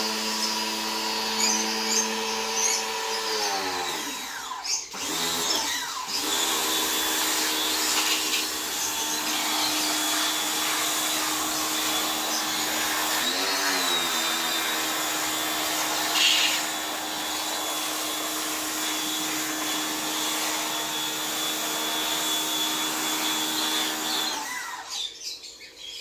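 Pressure washer motor running with the hiss of its water jet while washing palm fronds. It winds down and stops about four seconds in, starts again a couple of seconds later, dips briefly halfway through, and cuts out near the end.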